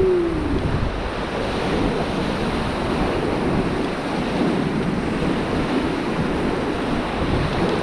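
Rushing whitewater of the Beas (Vyas) river, a steady rush with wind buffeting the microphone.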